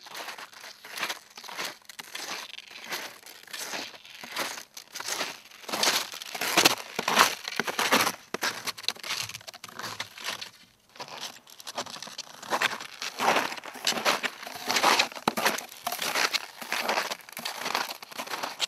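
Snowshoes crunching through snow, step after step, at about one to two steps a second, with a short pause partway through.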